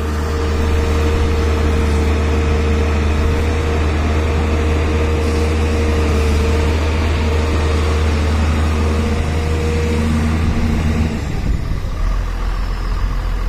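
Volvo wheeled excavator's diesel engine running steadily close by, with a steady higher whine over the engine hum. About ten seconds in the whine stops and the engine note drops lower.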